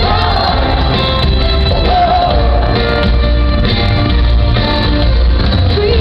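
Live pop-rock band playing with a heavy, booming bass, with a woman singing into a handheld microphone over it, heard through a camera microphone in the arena crowd, with the highs cut off.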